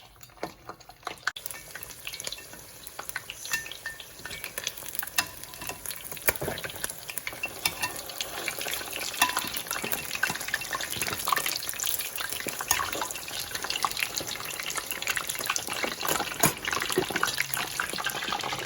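Unbreaded chicken legs frying in hot oil: a dense, irregular crackle and spatter of pops that builds up about a second in and grows busier toward the end, as the dried skin crisps.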